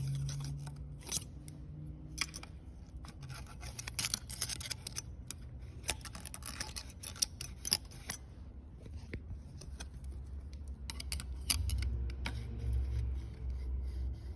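Hand tools and small metal engine parts clicking and tapping irregularly, dozens of short sharp ticks, over a low steady hum.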